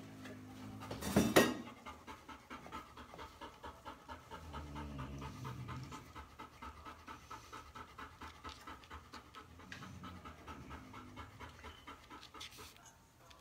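A puppy panting in a quick, even rhythm. There is a sharp, loud noise about a second in.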